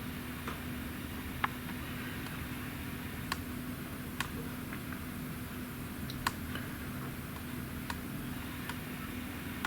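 A steady low machine hum with scattered sharp ticks and clicks, roughly one a second at uneven intervals.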